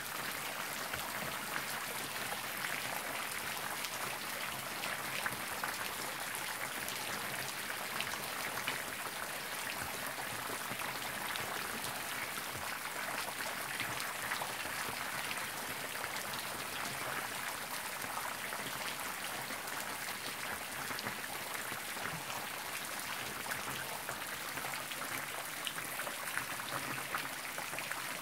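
Steady rain falling on trees, grass and puddles: an even hiss dotted with many small drop ticks.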